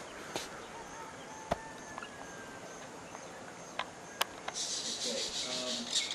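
Outdoor morning ambience with scattered clicks and a thin whistled bird call, then a high, rapidly pulsing buzzing trill from about four and a half seconds in.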